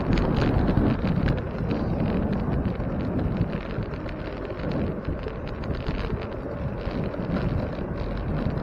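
Wind rushing over the microphone of a camera on a moving bicycle, a steady low rumble mixed with road and tyre noise.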